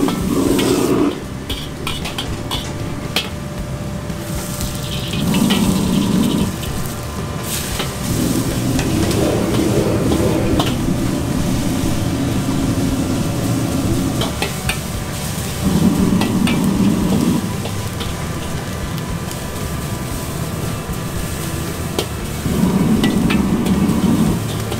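Rice vermicelli sizzling in a carbon-steel wok over a gas wok burner, with the metal ladle scraping and clinking against the wok as it is stir-fried. A deeper rumble swells up four times, for a second or two each time.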